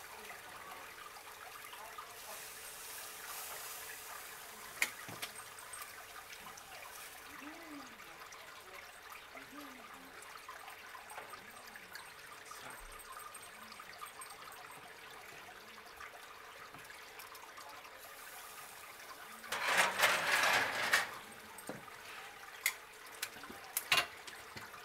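Steady hissing of a gas-fired 800-degree top-heat grill (Beefmaker Pro) with steaks cooking under its burner. About 20 seconds in, a louder clattering scrape of about a second and a half as the metal grate is slid back in.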